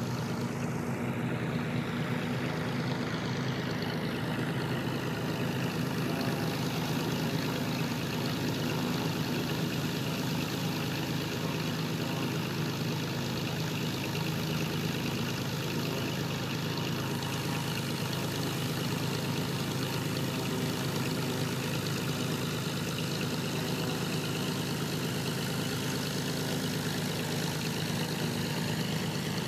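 Several light piston-engine propeller aircraft (Beechcraft Bonanzas) droning steadily as they fly the landing pattern, with the pitch falling in the first few seconds as one passes.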